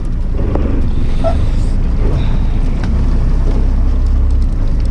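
Fishing boat under way: its engine running with a steady low rumble and wind buffeting the microphone.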